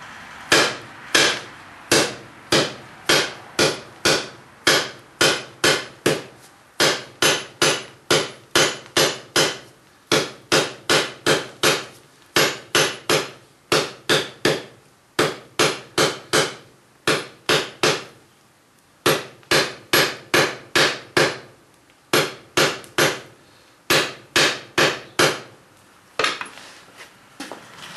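Blacksmith's hand hammer striking a hot steel bar on an anvil, forging it square: steady blows about two a second, each ringing briefly, in runs separated by short pauses.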